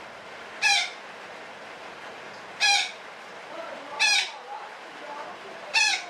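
Betet parakeet giving four short, loud calls, spaced about one and a half to two seconds apart.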